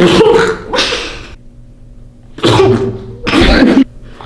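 A girl's stifled laughter breaking out through pursed lips in four sputtering bursts.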